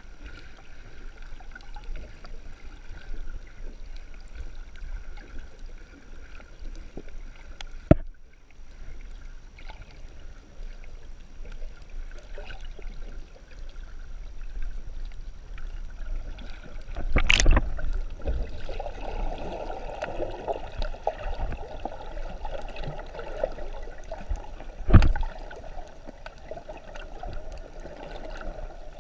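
Muffled underwater water noise picked up by a GoPro in its waterproof housing while snorkelling, with a few sharp knocks or thumps scattered through it.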